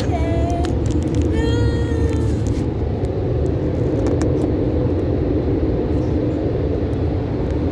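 Steady low road rumble inside a moving car. In the first couple of seconds two short high-pitched cries cut through it, the second one longer.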